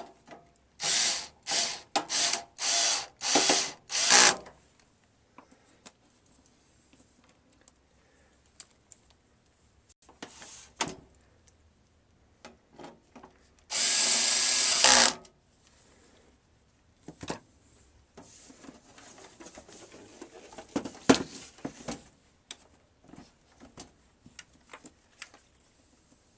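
Power screwdriver driving the case screws of a DVD recorder's cover. Six short pulses in quick succession come near the start, then one longer run of about a second and a half mid-way, with small clicks and rattles of handling in between.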